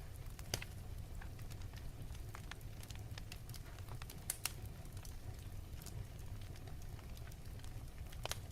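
Fireplace fire crackling: scattered sharp pops and snaps over a steady low rumble, with a louder pop about half a second in and a quick pair of pops near the middle.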